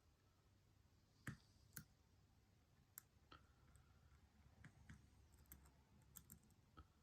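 Faint, scattered clicks of a lock pick and tension tool working the pins of an Abus 83/45 padlock: two clearer clicks about a second and a half in, then smaller irregular ticks.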